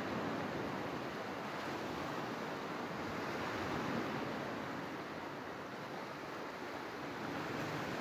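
Small Black Sea waves washing up onto a sandy beach: a steady rush of surf that swells a little around the middle and eases off after.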